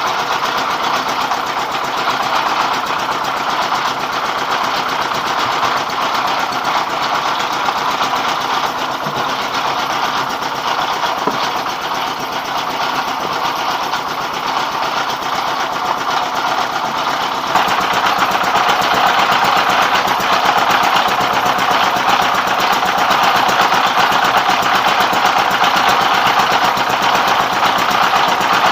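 Rice mill driven by a 24 hp dompeng single-cylinder diesel engine, running steadily while it mills paddy into rice. The noise gets suddenly louder about two-thirds of the way through and stays that way.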